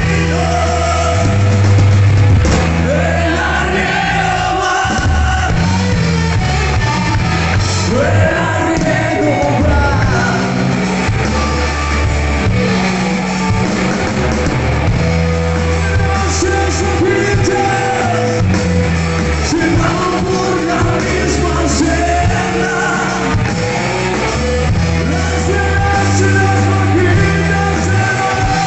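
Live rock band playing loud, with heavy bass lines under guitar and a singing voice, echoing as in a large hall.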